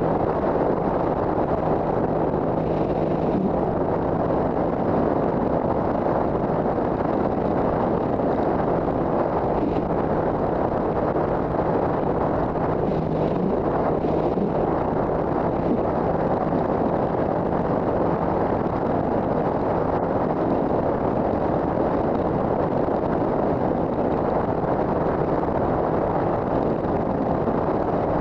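Steady wind rush on a helmet-mounted microphone at road speed, with the 2007 Triumph America's 865 cc parallel-twin engine humming faintly underneath at a constant pitch.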